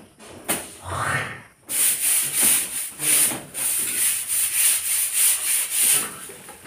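A long-handled broom scraping and brushing down a bare cement wall in quick repeated strokes, about three a second, starting about two seconds in and stopping about six seconds in.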